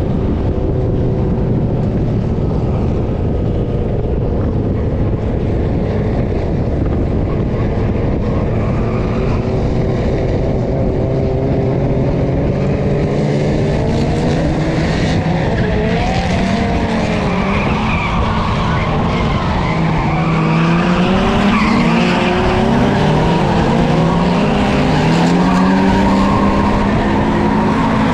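Drift car engine held at steady revs, then from about halfway revving up and down repeatedly while the tires squeal and skid through drifts.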